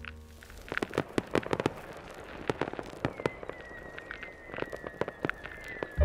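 Fireworks going off: a scatter of sharp bangs and crackles, joined about halfway through by a long, slightly falling high whistle.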